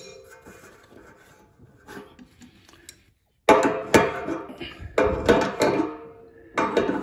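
Adjustable wrench knocking and clinking on a radiator's metal bottom union nut and valve as the fitting is worked loose. About three and a half seconds in, a run of about six sharp metallic knocks begins, each leaving a short ringing tone.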